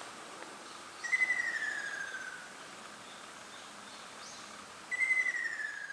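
Ruddy kingfisher calling twice: two long, falling calls about four seconds apart, over a steady hiss of forest ambience.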